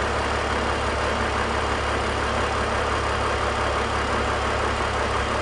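BMW E46 straight-six engine idling steadily at about 700 rpm. The tube from the valve cover to the oil separator has been reconnected, closing a large vacuum leak, and the fuel trims are settling back to normal.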